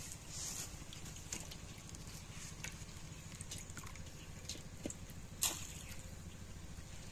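Small splashes, drips and sloshing from water in a clay pot as a hand works in it, with scattered light knocks. One sharper splash or knock about five and a half seconds in, over a steady low rumble.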